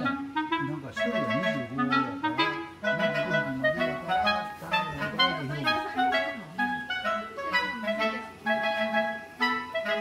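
Background music: a quick, bouncy tune of short notes led by clarinet, over a moving lower line.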